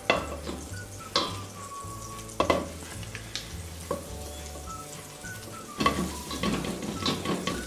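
A plastic spoon stirring and scraping melting margarine in a stainless steel pot, with a soft frying sizzle and sharp knocks of the spoon against the pot. The knocks come a few times, then in a quick run near the end.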